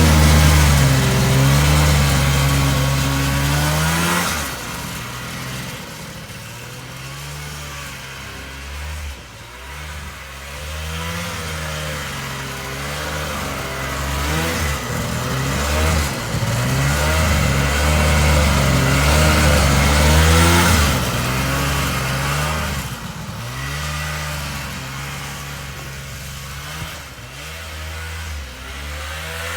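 Vintage John Deere snowmobile's two-stroke engine running, its pitch rising and falling as the throttle is worked. It is loud for the first four seconds, drops back, and swells again midway.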